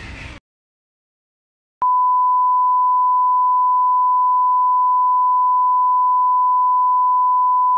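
The last of a commercial's soundtrack cuts off, and after a second or so of silence a steady 1 kHz line-up test tone starts suddenly: one pure, unbroken beep at constant loudness, the reference tone that goes with broadcast colour bars.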